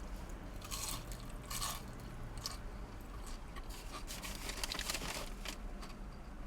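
A person chewing a bite of battered pineapple fritter: faint, irregular crunches of the crumbly coating.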